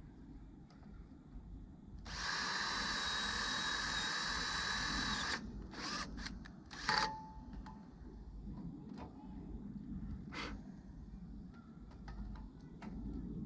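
Electric drill with a 5/32 bit runs steadily with a whine for about three seconds, drilling out a rivet of the mower deck's worn blade-brake pad, then stops. A few sharp clicks and knocks follow, the loudest about seven seconds in.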